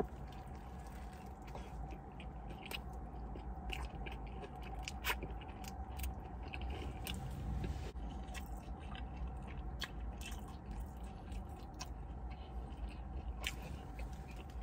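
Close-up chewing of a mouthful of double cheeseburger, with scattered small wet clicks and soft crunches, over a steady low hum.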